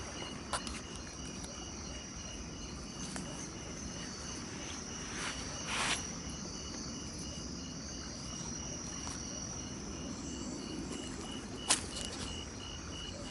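Night insects: a cricket chirping in an even pulse, about two to three chirps a second, over a steady high insect drone. A few handling clicks and a brief rustle cut in, the sharpest click near the end.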